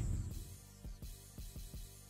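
Quiet background music with soft, low drum beats.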